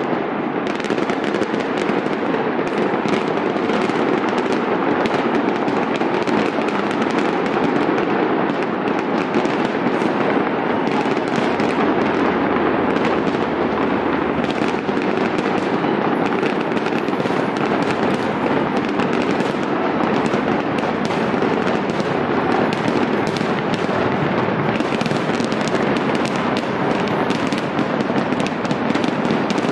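Aerial fireworks display going off in a dense, unbroken barrage of bangs and crackle, many shells bursting over one another.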